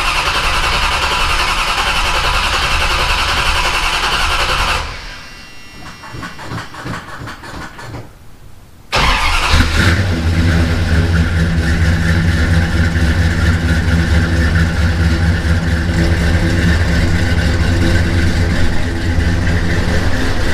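1979 Chrysler Cordoba V8 cranking over on the starter for a cold start after sitting for months. The cranking stops about five seconds in, and after a few seconds' pause the engine fires about nine seconds in and keeps running steadily.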